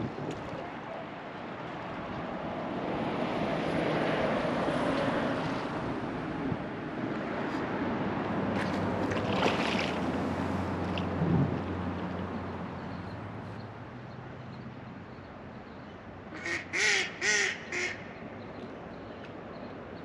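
River water rushing and rippling around a floating raft, swelling and then easing off. Near the end a duck quacks four times in quick succession.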